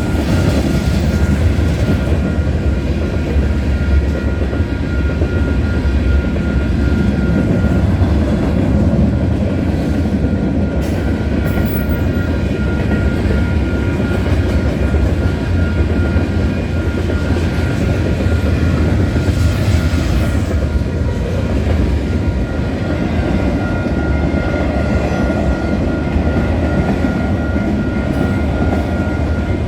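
Freight train cars, including autoracks, rolling steadily past at track side: a loud, even rumble of wheels on rail with some clickety-clack. A level-crossing bell dings rapidly and evenly over it.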